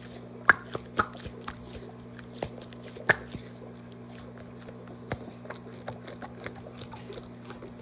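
Peanut-shaped squishy toy being squeezed and kneaded by hand, giving a string of short soft clicks and pops, the loudest about half a second and three seconds in.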